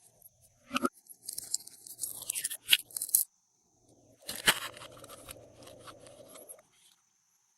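Glossy slime being squished and mixed by hand with add-ins, giving irregular crackling and popping in two stretches, with a sharp snap in the middle.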